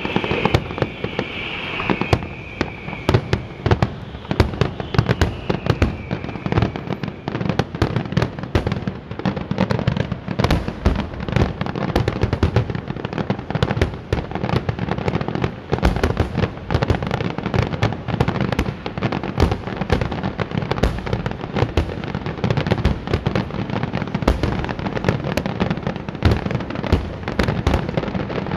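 Aerial fireworks finale: a continuous rapid barrage of shell bursts and crackle, many bangs a second with no pause. A high whistle fades out over the first several seconds.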